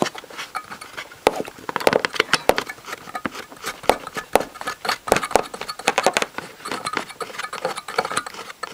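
Irregular clicks and rubbing as a hand mixer's motor armature is turned by hand with a rag pressed hard against the commutator, cleaning off carbon deposits.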